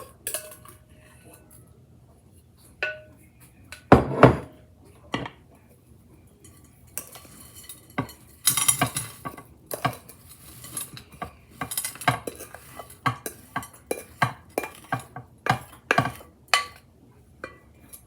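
A kitchen utensil scraping and knocking against a mixing bowl as oatmeal-bake batter is scooped out into baking pans. A few separate knocks, a loud double knock about four seconds in, then a busy run of scrapes and taps from about seven seconds in.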